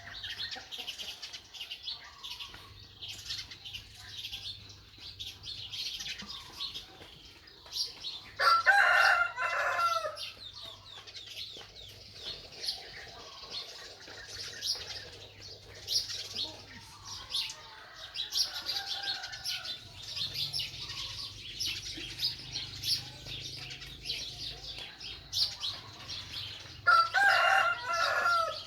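A rooster crows twice, once about eight seconds in and again near the end, each crow lasting under two seconds. Small birds chirp continuously in the background.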